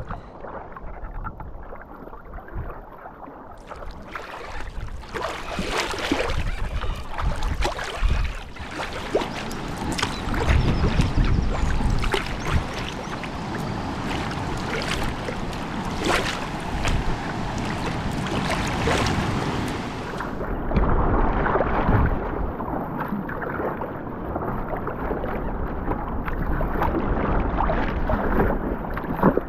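Water splashing and slapping around a sea kayak as it is paddled through choppy sea, with irregular sharp splashes and wind rumbling on the microphone.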